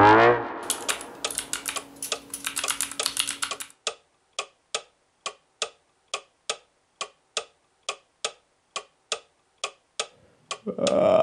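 Typing on a laptop keyboard: a quick flurry of key clicks for about three seconds, then single key presses about three a second. A rising synth sweep fades out at the very start.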